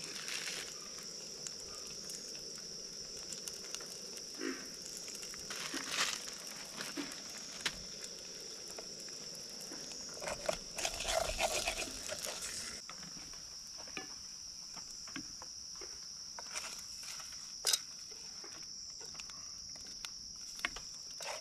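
Steady high insect buzz, with cooking sounds from a small steel pot on a camp stove: chopsticks tapping and scraping in the pot and scattered clinks, the sharpest one near the end.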